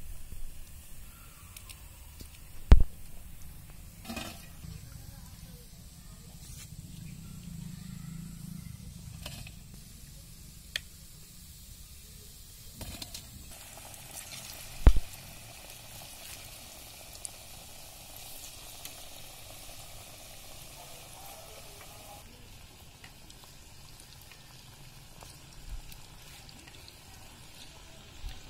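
Palm fruit fritters (taler bora) deep-frying in hot oil in a black iron karai, a steady sizzle. Two sharp knocks stand out, about three seconds in and about fifteen seconds in.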